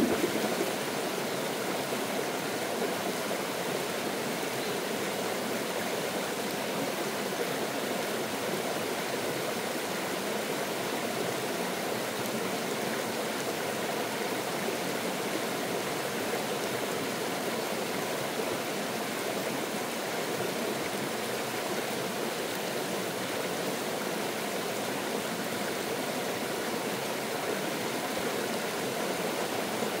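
Small mountain stream running steadily over rocks and spilling down a low cascade. There is a brief thump right at the start.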